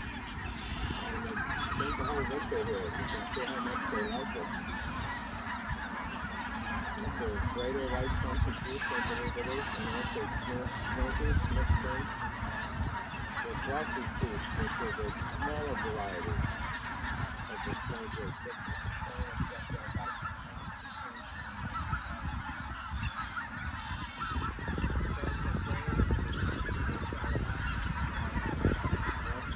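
A huge flock of geese, mostly snow geese, all calling at once in a dense, unbroken chorus of overlapping honks and yelps.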